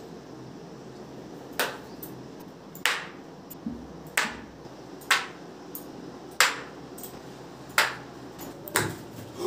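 Eight sharp clicks about a second apart, from toothpicks being flicked off the finger and striking a polystyrene foam sheet.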